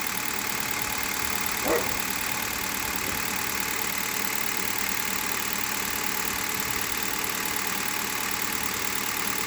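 Hyundai Solaris petrol engine idling steadily with a cold engine, on 5W-30 oil that has done about 1000 km. The owner hears none of the knock it made on previous oils. A brief short call rises above the idle about two seconds in.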